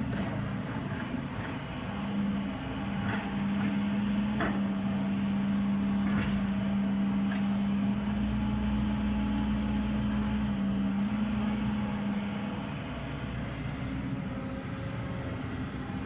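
Backhoe loader's diesel engine running at steady revs while excavating, its hum strongest for most of the middle and easing off near the end, with a few short sharp knocks of metal and rock in the first half.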